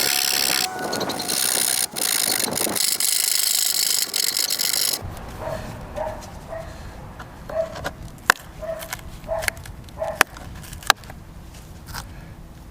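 A hand-held hacksaw blade sawing through a boat deck with a steady rasping that stops suddenly about five seconds in. A few light clicks and taps follow.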